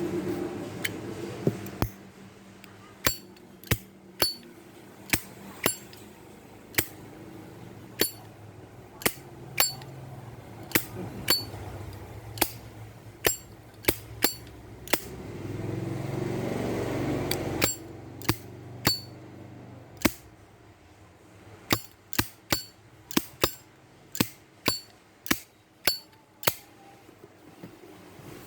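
Zippo lighter's hinged metal lid clicking open and snapping shut again and again at an irregular pace, each a sharp metallic clink. Partway through there is a louder stretch of handling rumble lasting a couple of seconds.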